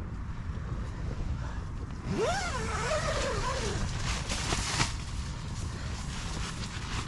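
Strong wind buffeting the microphone with a steady low rumble. From about two to five seconds in it grows louder and hissier, and a pitched tone rises and then wavers.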